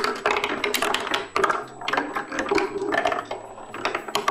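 Glass marbles rolling and clattering through a wooden marble machine: a rapid, irregular run of clicks and knocks as marbles drop down the wooden chutes and ramps. The top release peg lets the waiting marble go.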